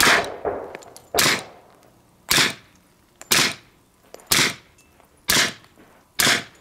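Seven suppressed .45 ACP pistol shots, about one a second, from a 1911 fitted with a PSD STAK 45 suppressor, firing subsonic 230-grain rounds. The shots are quiet, with no supersonic crack.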